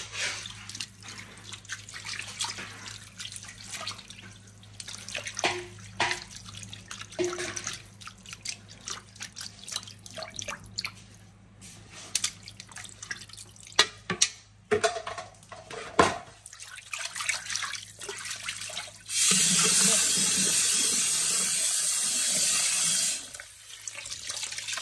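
Hands splashing and swishing blanched shepherd's purse greens about in a sink of cold water. About nineteen seconds in, the tap runs hard for some four seconds and then cuts off, and the splashing starts again.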